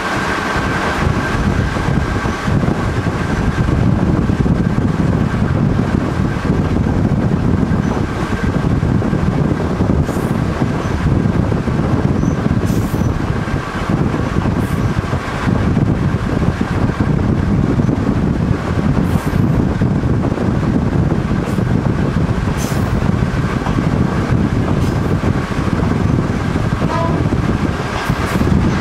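Kominato Railway KiHa 200 diesel railcar running along the line, heard from inside the car: a steady rumble of engine and wheels with a few sharp clicks.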